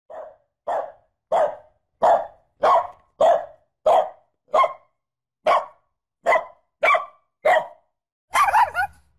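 A dog barking repeatedly, about a dozen short barks a little more than half a second apart, ending in a longer, wavering bark-whine near the end.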